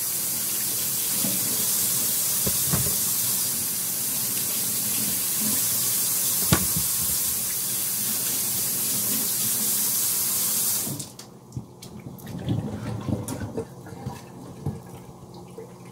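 Kitchen tap running steadily as potatoes are rinsed under it, shut off about eleven seconds in, followed by soft knocks and handling sounds.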